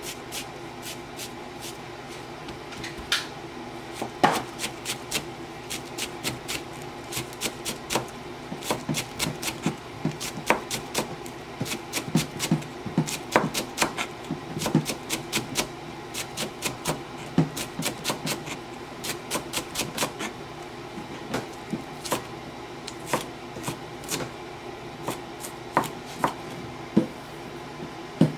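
Kitchen knife mincing a green-onion stalk on a plastic cutting board: quick, irregular knocks of the blade against the board, a few a second.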